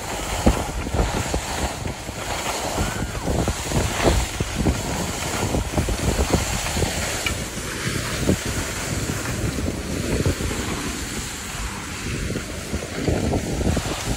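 Wind buffeting the phone's microphone over the steady hiss and scrape of skis sliding and carving across packed snow on a downhill run.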